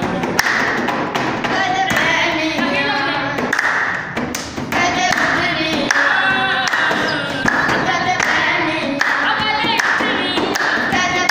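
Boys singing a song without instruments, keeping time with hand claps and by slapping their palms on a wooden school desk as a drum.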